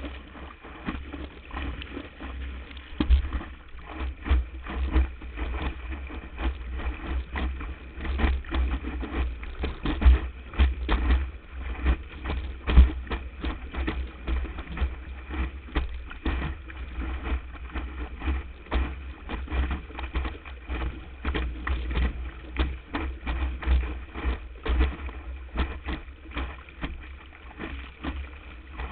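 Windsurf board planing over the water, heard from a camera mounted on its deck: a steady low wind rumble on the microphone with many sharp, irregular slaps and splashes as the hull strikes the surface and throws spray.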